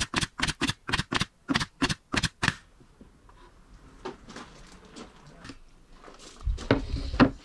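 Nail gun firing nails into a wooden strip on a chipboard panel: about a dozen sharp clacks in quick succession over the first two and a half seconds. A longer handling noise follows near the end.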